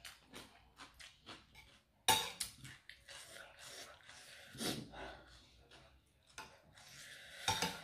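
Close-up eating sounds from spicy cucumber salad with octopus: quick crunchy chewing clicks at first, then louder wet slurps and sharp breaths about two seconds in, near five seconds and near the end, with a utensil clink now and then.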